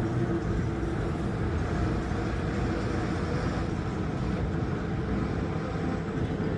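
A steady machine noise that cuts off suddenly near the end.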